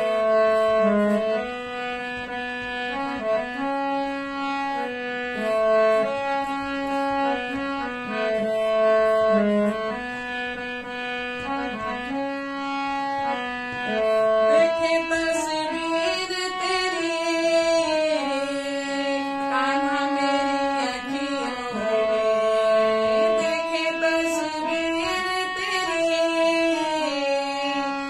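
Harmonium playing a bhajan melody, its reeds holding steady chord tones that step from note to note. From about halfway through, a wavering voice hums along with the melody.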